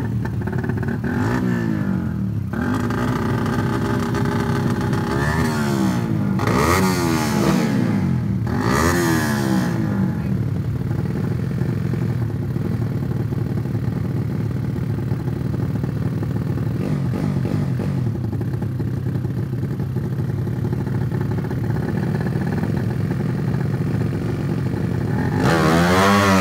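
Two tuned four-stroke single-cylinder race motorcycles, a big-bore Yamaha Vega and a Suzuki Satria FU with a ported head, running at the start line. Between stretches of steadier running the throttles are blipped in repeated rising and falling revs. Near the end the revs climb sharply as the bikes launch.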